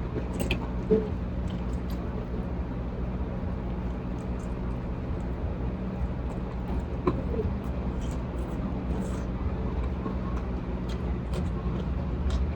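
A steady low mechanical hum, with a few faint clicks and small taps from eating.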